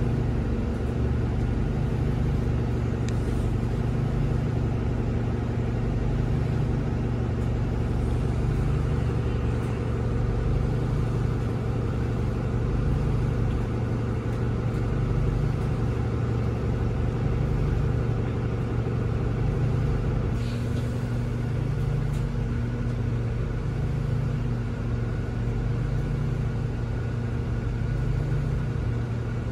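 Inside the cabin of a 2018 NovaBus LFS CNG transit bus: its Cummins L9N natural-gas engine idling with a steady low hum and a faint regular pulsing.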